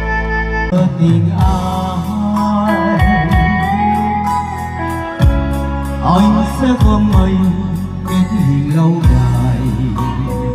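Backing music played loud through a large stage sound system, with a steady beat, a bass line and a melodic lead line.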